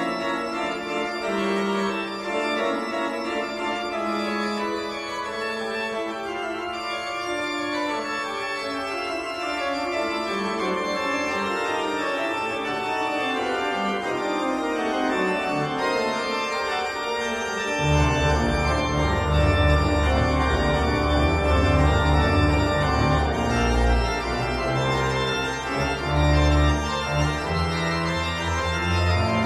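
Background instrumental music with sustained, organ-like keyboard chords and descending runs; a deep bass line comes in about eighteen seconds in and the music grows louder.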